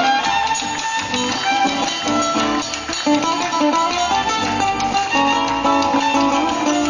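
Argentine folk music played on guitars.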